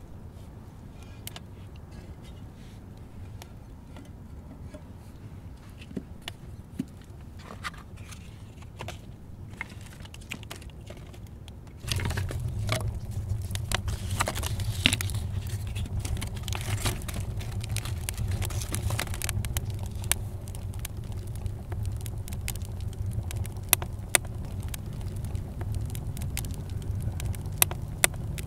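Wood fire crackling and popping in an adobe rocket stove, with sticks scraping and snapping as they are handled at the feed opening. About 12 s in, the sound turns louder: a steady low rush of the fire burning hard under frequent sharp crackles and pops.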